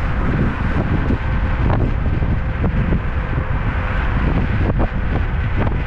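Wind buffeting the camera microphone on a moving Kaabo Mantis King GT electric scooter: a loud, steady rumble with a faint steady whine under it. A few short knocks come through as the scooter rides over bumps.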